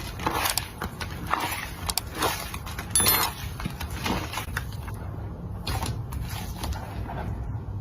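Slime being pressed and squeezed by hand: a series of short squishing, crackling sounds about once or twice a second, fewer after about five seconds in.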